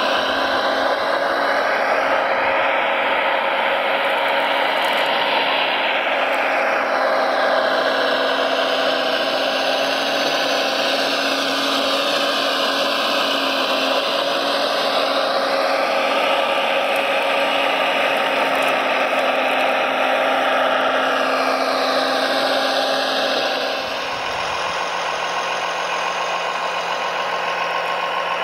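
Radio-controlled construction model running steadily, a dense mechanical motor sound with a constant hum under it. It drops slightly in level and changes a little before the end.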